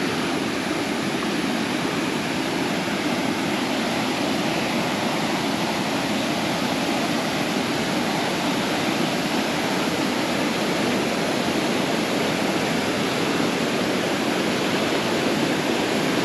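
Waterfall, a steady rush of falling water that holds even throughout.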